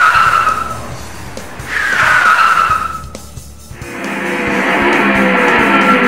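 Cartoon race-car sound effects: two short falling tyre squeals, then from about four seconds a continuous engine rev with tyres screeching, as in a burnout on the start line, over background music.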